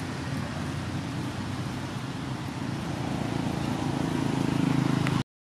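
Low, steady engine rumble of a nearby motor vehicle, growing louder toward the end, then cut off suddenly.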